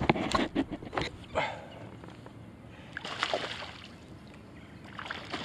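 Hooked ladyfish splashing and thrashing at the water's surface in bursts: several splashes in the first second and a half, another burst about three seconds in, and a smaller one near the end.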